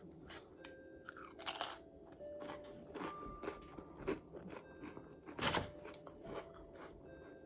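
Close-up chewing of crispy breaded fried pickles: loud crunches about a second and a half in and again about five and a half seconds in, with smaller crunches and mouth clicks between.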